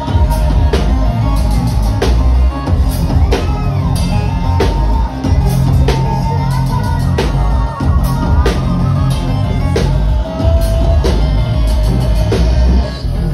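A live electronic rock band playing loud: drum kit, bass guitar and synthesizers over a heavy low end, with steady, regular drum strokes.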